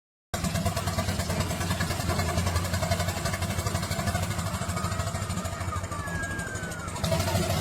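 An engine running steadily with a fast pulsing note, starting abruptly just after the start.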